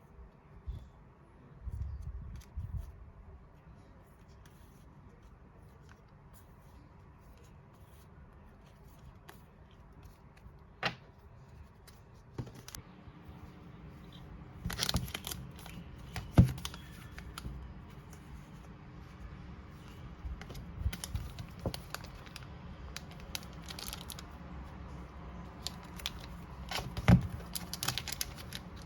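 Hands unboxing album and merchandise packaging: paper and plastic being torn and crinkled, with scattered clicks and a few sharp knocks.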